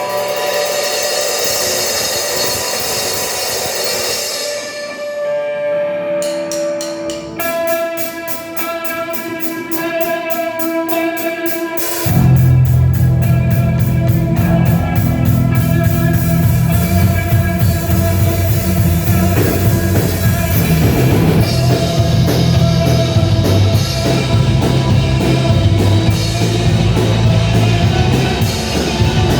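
Rock music. It opens with a sparse intro of held notes, a fast, even pulse joins partway through, and about twelve seconds in the full band with drums, guitar and heavy bass comes in much louder.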